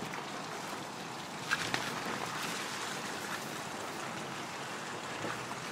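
Off-road vehicle driving along a muddy, half-frozen dirt track: a steady rush of engine and tyre noise through mud and slush, with two sharp knocks about one and a half seconds in.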